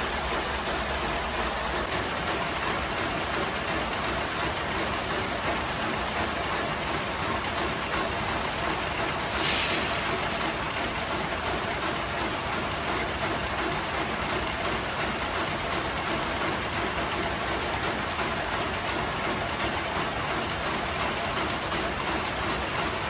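Steady, dense din of factory machinery, with a brief louder hiss about nine and a half seconds in.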